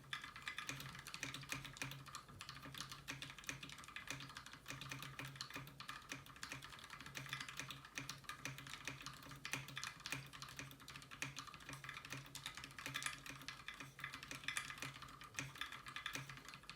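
Steady fast typing on a 60% custom mechanical keyboard with lubed Gateron Milky Yellow linear switches, a brass plate and PBT Cherry-profile keycaps: a continuous run of quick, irregular keystroke clacks.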